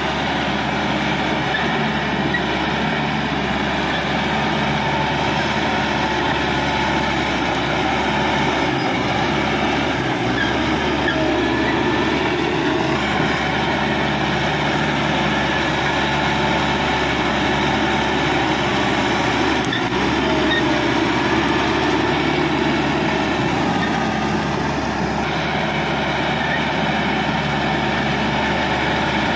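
Caterpillar D5K XL crawler bulldozer's diesel engine running steadily under work, with the steel tracks rolling.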